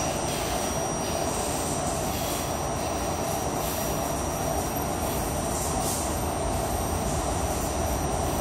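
Steady interior noise of an R68A subway car: an even rush with a constant high-pitched whine over it.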